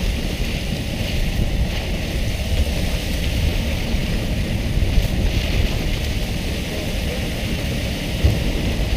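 Steady wind rushing over the microphone, with the hiss and splash of churned sea water beside a fishing boat and a low rumble underneath.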